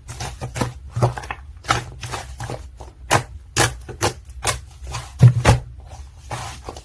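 Irregular sharp clicks and taps, about two or three a second, over a steady low hum.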